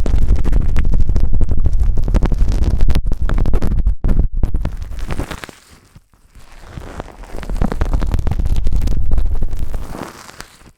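Close-up ear massage on a microphone: hands rubbing and pressing over the mic's ears, a dense scratchy rubbing with a heavy deep rumble. It eases off for a moment about halfway, swells again, and fades near the end.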